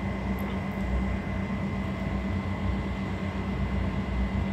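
Steady background hum and rumble with a faint, constant high whine and no distinct events.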